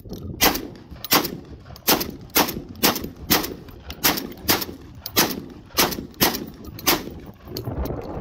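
Eternal Arms BP12 semi-automatic bullpup 12-gauge shotgun fired rapidly, about a dozen shots roughly half a second to 0.7 s apart, stopping near the end.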